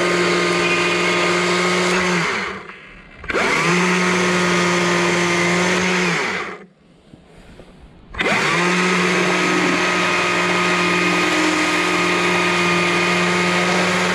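Stihl MSA 200 C battery chainsaw with a 12-inch bar and 43-gauge chain, carving wood in short runs. It runs with a steady whine, stops about two seconds in, and starts up again around three seconds with a rising whine. It stops again near six seconds, then spins up once more around eight seconds and keeps running.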